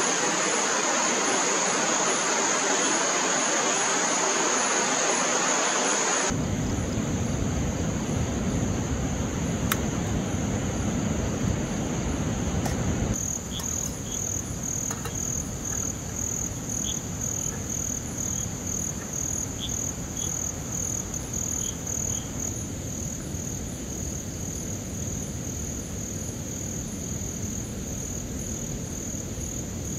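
Night insects, crickets, trilling steadily and high-pitched. From about six seconds in, a portable butane cartridge camping stove's burner adds a low steady rush. After about thirteen seconds the insect sound pulses roughly twice a second.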